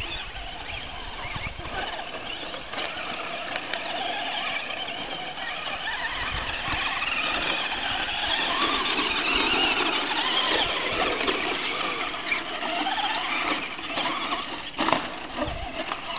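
Brushless electric motors and drivetrains of two Traxxas Slash RC short-course trucks whining as they race, the pitch rising and falling with the throttle and loudest in the middle as they pass close. One sharp click near the end.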